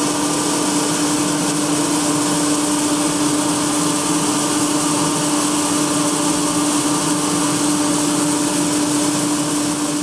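A grain machine running steadily with a constant hum, and grain pouring from its chute with a steady hiss.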